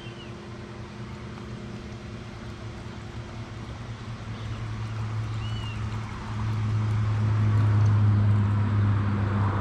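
A vehicle engine running with a steady low hum, unchanging in pitch, growing louder over the second half.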